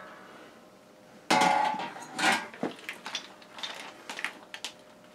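The stainless-steel lid of an ultrasonic cleaner is set down with a ringing metal clang about a second in. Smaller clicks and rustles follow as a plastic zip bag of metal parts is lowered into the steel tank.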